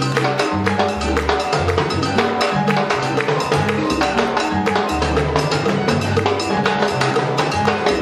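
Background music with a bass line and busy, steady percussion.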